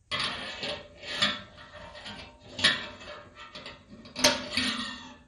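Metal clanks and scrapes of an electric heating element being fitted back into the side port of a stainless-steel brew kettle. Several sharp knocks, the loudest three about a second and a half apart, each leave the pot ringing.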